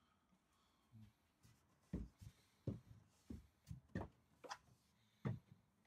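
Footsteps on wooden boards: a run of soft, irregular thuds about half a second apart, starting about two seconds in.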